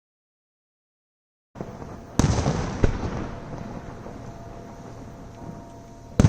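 Total silence for about a second and a half, then a fireworks display: a sharp bang a little after two seconds in and a second soon after, each trailing off in crackle and rumble, and another loud bang near the end.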